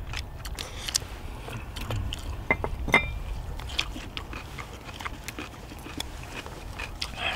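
People eating spicy stir-fried chicken (dakgalbi): close-up chewing with many small, scattered mouth clicks and smacks and the odd tap of chopsticks on bowls, over a steady low rumble.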